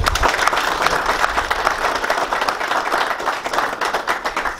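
Audience applauding: many people clapping at once, a steady mass of overlapping claps.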